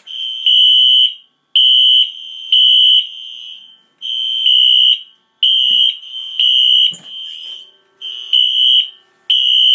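Fire alarm horn sounding in alarm: loud, high-pitched blasts in repeated groups with short gaps between them, cut off near the end when the audible is silenced at the panel.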